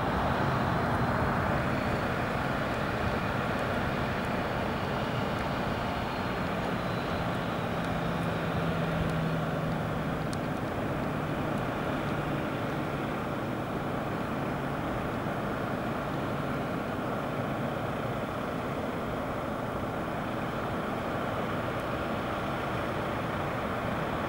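Boeing 737-800's CFM56 jet engines running at taxi power: a steady rumble and hiss with little change, and a faint low hum for a few seconds in the middle.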